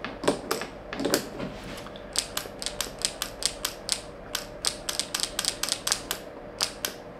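Wooden flapping-fish automaton worked by hand: a rapid, uneven run of light clicks, about four or five a second, as its spring-loaded pin pops in and out and the fish mechanism moves freely again after being bound up by superglue.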